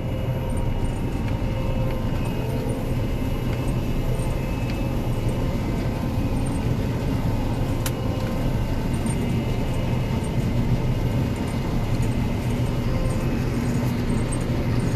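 Combine harvester running steadily while harvesting corn: a constant low hum with a few steady whining tones, and a single sharp click about eight seconds in.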